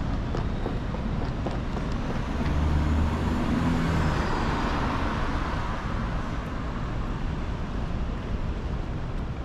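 Road traffic noise, with a vehicle's engine hum swelling as it passes close about three seconds in, then fading.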